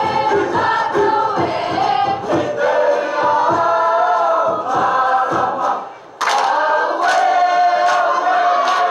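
A group of performers singing a Cook Islands song together in several voices over a steady beat. Near six seconds in the singing drops away briefly, then comes back loud and sudden with sharp accents.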